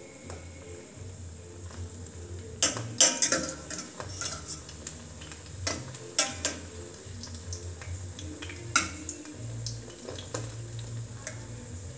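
A metal knife clinking and scraping against a frying pan as dumplings are turned in hot oil. There is a scatter of sharp clinks, loudest about three seconds in, with frying oil sizzling underneath.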